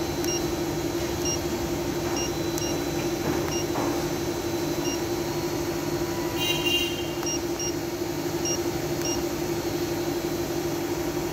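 Short high beeps from the Micro DNC device's keypad as its buttons are pressed, about nine at irregular intervals, over a steady electrical hum; a brief brighter chirp comes about six and a half seconds in.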